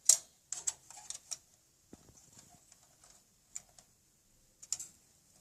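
A sharp click at the start, then scattered light clicks and taps of a CPU socket's lever and processor being handled as the CPU is released from its socket.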